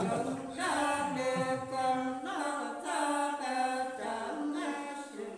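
A single voice singing a Nùng folk song unaccompanied, in long held notes that slide up and down between pitches.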